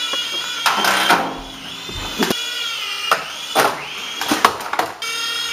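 Air Hogs coaxial RC toy helicopter's small electric rotor motors whining at a steady high pitch, dipping and rising as it flies inside a closed microwave oven. Several sharp knocks come through the whine.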